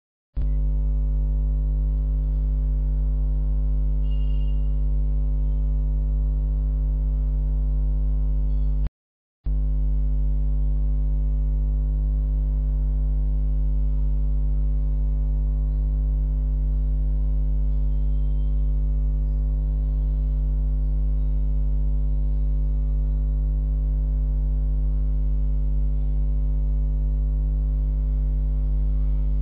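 Steady electrical mains hum: a low buzz with many overtones that never changes. It cuts out completely for about half a second about a third of the way in.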